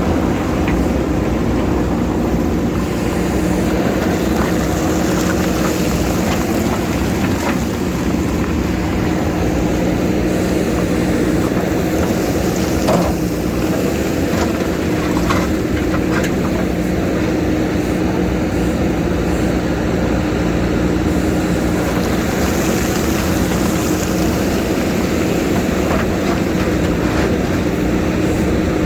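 JCB backhoe loader's diesel engine running steadily, with a few short knocks about halfway through.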